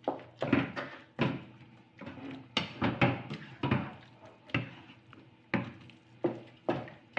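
A spatula knocking and scraping against a cooking pan while stirring thick, sticky glutinous rice for biko: about a dozen sharp, irregular knocks, roughly one every half second.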